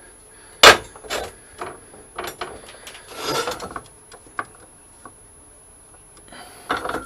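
Knocks and clatter of metal parts and tools being handled in a workshop. There is one sharp knock about half a second in, the loudest sound, then a few lighter clicks and knocks and a short scraping rustle around three seconds in.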